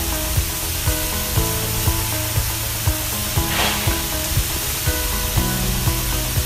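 Pork chops sizzling on a Blackstone flat-top griddle, under background music with a steady beat of about two low thumps a second. A brief louder hiss comes about halfway through.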